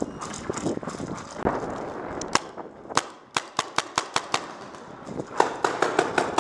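Paintball markers firing: sharp pops in rapid strings of about five shots a second, a run in the middle and another near the end, with scattered single shots between.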